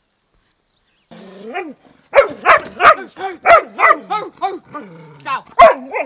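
Australian Shepherd barking in play: a quick run of about a dozen loud, short barks, roughly three a second, starting after a second of silence.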